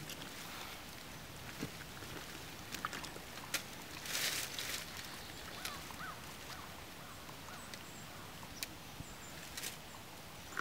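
Dry leaf litter crackling and rustling as a hunter handles a downed white-tailed deer on the forest floor, with scattered sharp crackles and a louder rush of rustling about four seconds in.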